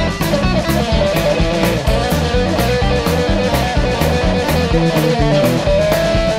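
Background music: guitar over a steady drum beat.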